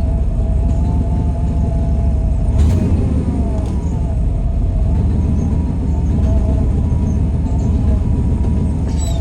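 Truck engine noise: a steady low rumble with a faint whine that wavers in pitch, and a sharp click about two and a half seconds in and another at the very end.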